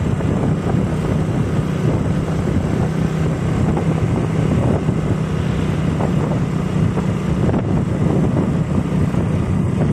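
Intercity bus's 'ngorok' exhaust, the deep snoring note the bus is known for, running as a steady low drone.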